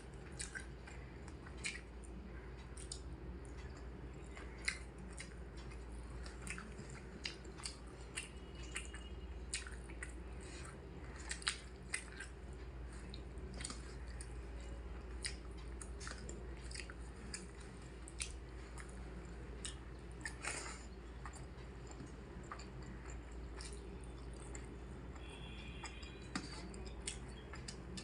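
Close-up chewing and mouth sounds of a person eating, with scattered short wet clicks and smacks over a steady low hum.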